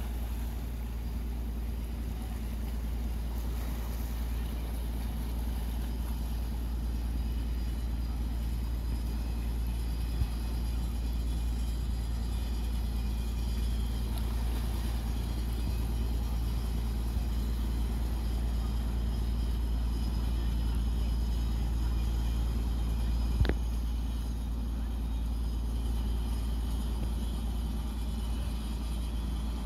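Fishing boat's engine running steadily as the boat motors past, a low even drone throughout. One sharp knock sounds about three-quarters of the way through.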